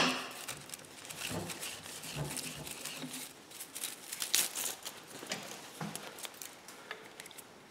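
A sharp click at the start, then faint rustling and crinkling as stringy HDPE plastic shavings are pulled off the threaded rod and out of the thread die by hand.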